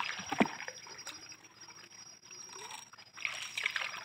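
Water splashing and trickling along a small wooden boat as it is paddled, with a couple of knocks about half a second in; the splashing gets stronger near the end.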